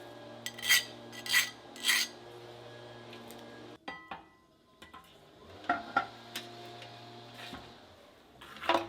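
Metal workpiece or tools being handled in a workshop: three sharp metallic clinks about a second in, then more clinks and scrapes later, over a steady electrical hum that stops about halfway.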